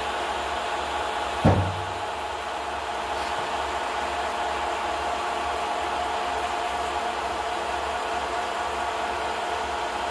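Steady mechanical whir and hiss of a film projector running, with one sharp thump about a second and a half in.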